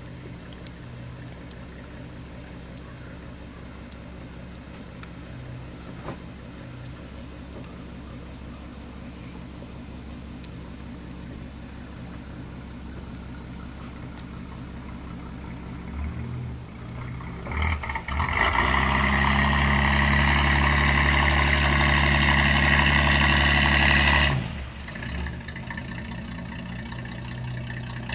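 Motorboat engine running steadily at low speed, then throttled up much louder from about two-thirds of the way in for some six seconds, before dropping back.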